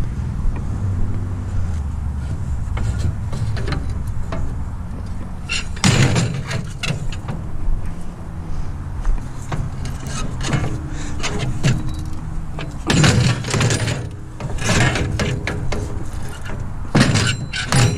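Aluminum scrap clattering and banging as pieces are handled and loaded into a truck, several loud knocks in the second half, over a steady low engine hum.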